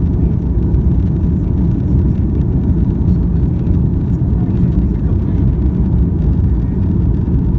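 Steady low roar of an airliner's jet engines and rushing air, heard from inside the cabin during the climb after takeoff.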